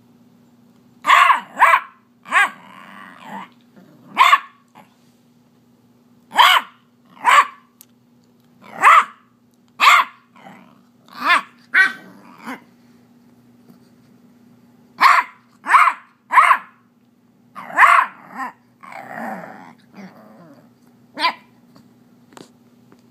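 Beagle puppy barking: about seventeen short, sharp barks in bunches with pauses between, with low growling twice, a few seconds in and again late on. She is upset that her toy has been taken away.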